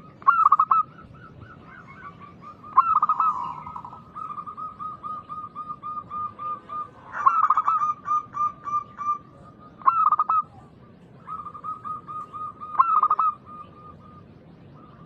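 Zebra doves cooing: a loud phrase about every three seconds, with quick trains of short, even coos in between.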